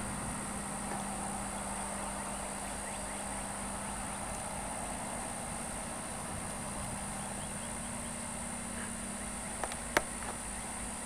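Steady low hum and hiss, with two sharp clicks close together near the end.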